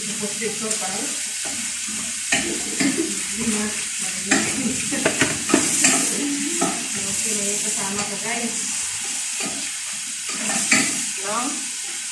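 Kitchen work at a sink and stove: a steady hiss under many short clinks and knocks of dishes and utensils.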